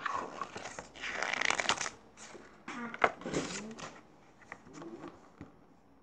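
Pages of a picture book being turned by hand: paper rustling and flapping, loudest in the first two seconds, followed by a few lighter handling sounds.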